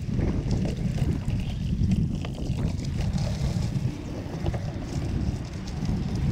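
Strong wind buffeting the microphone of a GoPro on a moving bicycle: a heavy, fluttering low rumble throughout, with faint light ticks over it.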